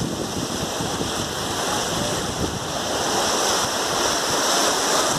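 Sea waves breaking on a beach in a steady wash of surf, with wind buffeting the microphone.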